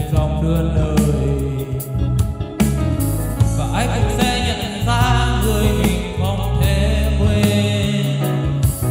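A man singing over a karaoke backing track, his voice picked up by a Boss QM-71 wireless microphone and played through a Bose S1 Pro+ portable PA speaker.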